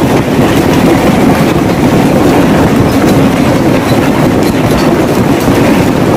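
A violent storm: a loud, dense, steady rumble with many small impacts running through it.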